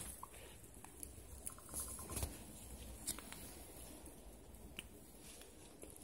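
Faint crackling of a wood campfire: scattered small pops and clicks at irregular intervals over a quiet background.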